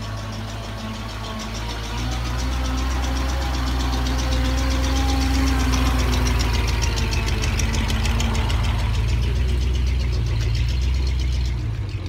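1933 Ford side-valve (flathead) V8 engine of a tow truck running at low revs as the truck creeps past close by, growing louder over the first couple of seconds and dropping away shortly before the end.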